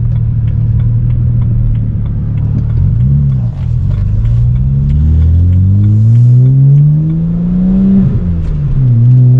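Twin-turbo BMW engine pulling hard under acceleration, its pitch climbing steadily through a gear. Near the end it drops sharply at a manual upshift, then starts climbing again.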